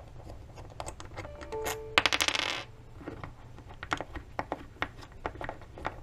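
Bolts being unscrewed by hand from a broken motorcycle footpeg-bracket clamp and set down on a tabletop: scattered light metal clicks and clinks, with a dense rattling run of clicks about two seconds in.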